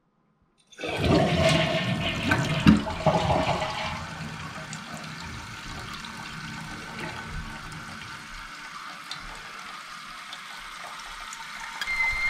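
Toilet flushed with the tank lid off: water rushes out loudly for about three seconds, then the tank refills with a steady hiss through the fill valve. Near the end a high, slightly wavering whistle starts, the kind of after-flush whistle that comes from either the tank's fill valve or the shut-off valve on the supply line.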